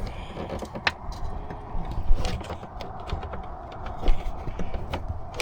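Irregular light clicks and rustles of a dash cam cable being worked through a rubber grommet by hand, with louder knocks about two and four seconds in.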